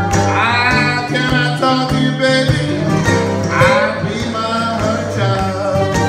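Country blues played live on two guitars with a harmonica. Over the strummed and picked guitars, the harmonica plays bent notes that slide up, twice.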